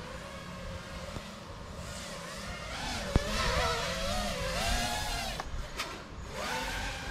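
FPV quadcopter's brushless motors and propellers whining, the pitch rising and falling with the throttle over a low rumble. There is a sharp click about three seconds in.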